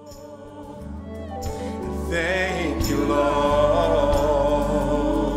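Gospel-style music fading in over the first two seconds: long held chords with a voice singing a wavering line above them.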